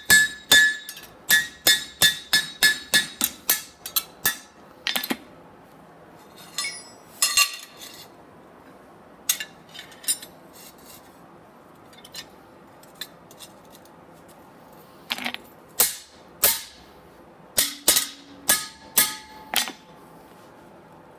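Hand hammer striking a hot steel leaf on a Hudson anvil, about three ringing blows a second for the first four seconds. Then scattered clinks, a few single knocks and a short run of lighter ringing taps near the end as a bent-rod hold-down is set on the anvil.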